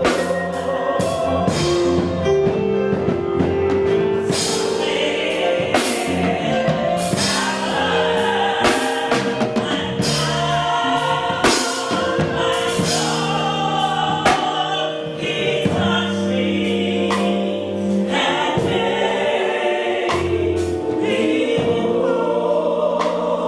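Gospel music: a choir singing over a band with sustained bass notes and regular percussion hits.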